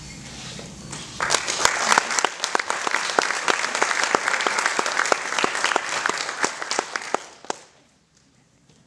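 Audience applauding, starting about a second in and dying away after about six seconds.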